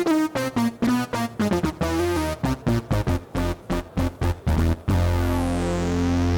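Waldorf Quantum hybrid synthesizer playing a patch: a fast run of short notes with gliding pitch, then a held chord about five seconds in, its bright top sweeping steadily downward.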